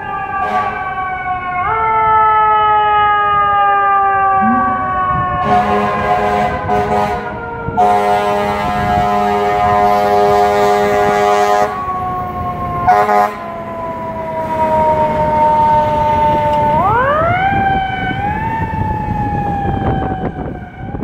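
Fire trucks responding with a mechanical siren that winds slowly down in pitch and is spun back up about 17 seconds in. Steady horn blasts sound over it in the middle stretch, one long blast of about four seconds and a short one near 13 seconds.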